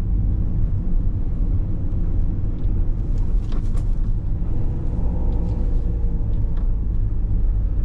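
Camper van driving on a road, heard from inside the cab: a steady low engine and road rumble, with a few faint clicks.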